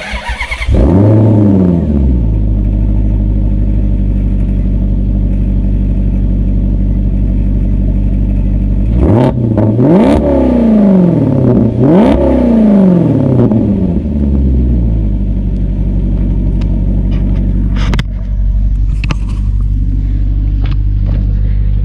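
Maserati GranTurismo's Ferrari-built V8 cranking and catching, with its start-up flare settling into a steady idle. It is revved twice, about nine and twelve seconds in, each rev rising and falling back to idle. The novelty turbo whistles clamped into the exhaust tips make no distinct whistle over the exhaust.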